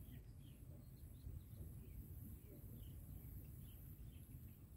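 Quiet outdoor ambience: a low steady rumble with faint, scattered short bird chirps and a faint high steady hiss.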